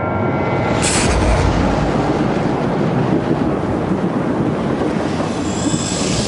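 Thunder from a close lightning strike: a sharp crack about a second in, followed by a loud, steady rumble.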